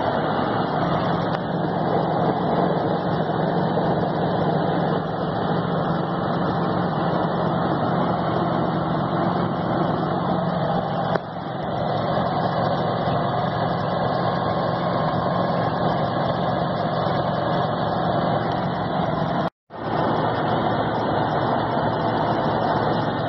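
Ford 7.3 IDI turbo-diesel V8 running under boost at road speed, heard from inside the cab as a steady engine drone mixed with road noise. The sound cuts out for an instant about three-quarters of the way through.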